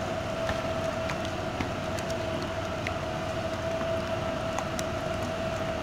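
A steady whining hum at one pitch over a constant hiss, with faint soft squelches and clicks from hands working a wet spice marinade into raw chicken and fish.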